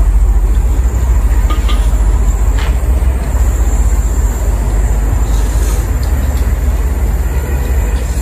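Steady rain on the sheet-metal roof of a prefab hut, with a few faint clinks of chopsticks and metal bowls about two seconds in.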